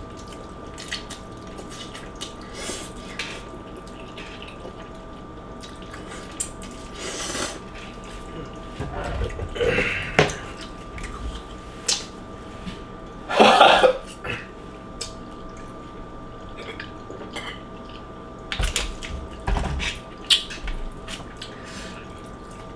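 Eating and drinking sounds: noodles slurped, forks clinking and scraping on a metal sheet pan, and a plastic water bottle handled and drunk from. These come as scattered short sounds, the loudest about halfway through, over a faint steady hum.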